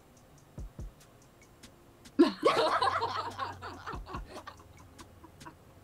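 Girls laughing over a video-chat connection: a loud burst of laughter about two seconds in that trails off over the next couple of seconds.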